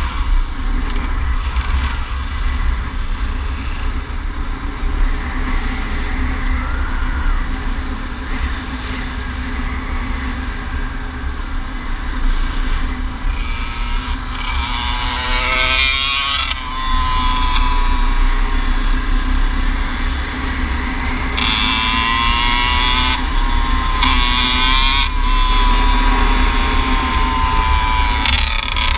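Yamaha dirt bike engine running at speed, heard from on board, with heavy wind rumble on the microphone. From about halfway, the engine gets louder and its note rises and falls repeatedly as the rider accelerates and shifts.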